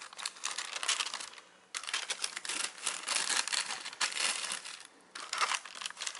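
Kraft wrapping paper crinkling and rustling as hands unfold it. It comes in three spells, broken by brief pauses about a second and a half in and again about five seconds in.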